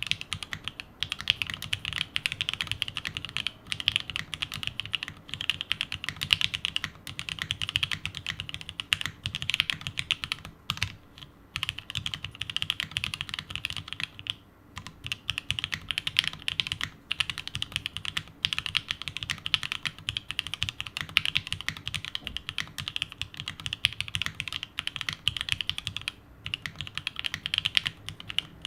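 Continuous fast typing on a plateless 7V custom mechanical keyboard with lubed and filmed H1 switches, lubed Staebies stabilizers and CRP R4 keycaps: a dense run of keystroke clicks with a few short pauses, around the middle and near the end.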